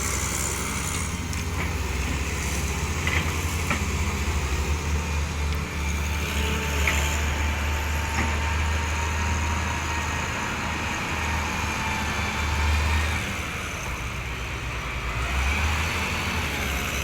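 Heavy construction machine's diesel engine running steadily with a low rumble, easing off briefly for a second or two near the end.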